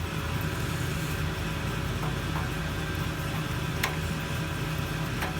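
Grazioli Fortuna metal lathe running, a steady low machine hum, with a few light clicks, the sharpest about four seconds in.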